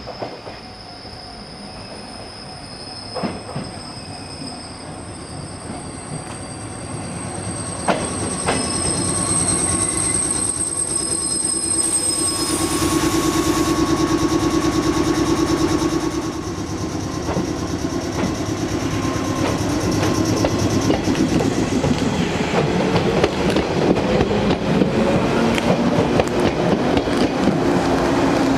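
A red JR West 415-series 800 electric train pulls out and runs close past, its motors whining upward in pitch as it gathers speed and its wheels clattering over the rail joints. High thin squealing tones sound through the first half, then fade out about halfway through.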